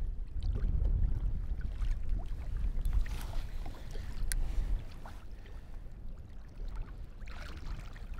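Sea water lapping and trickling against a kayak hull under a low rumble of wind on the microphone. The rumble eases off about five seconds in, and a few faint clicks and knocks sound throughout.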